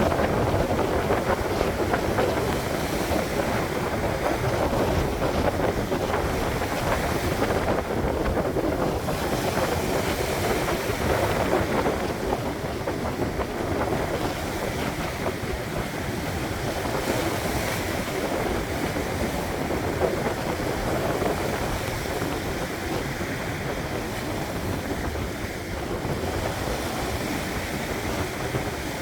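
Sea waves washing on the shore with wind, a continuous rushing wash that swells and eases gently, with wind buffeting the microphone.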